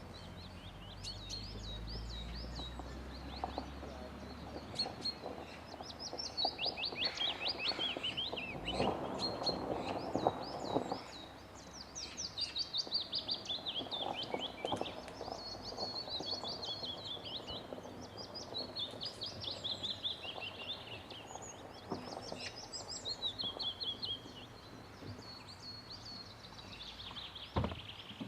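Several songbirds singing at once, overlapping phrases of quick repeated high notes and trills that carry on without a break.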